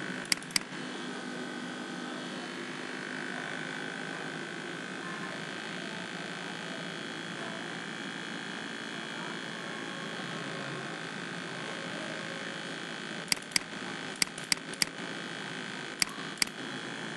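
Computer mouse clicks: a quick double-click right at the start, then seven more in quick pairs and a triple toward the end, over a steady background hiss.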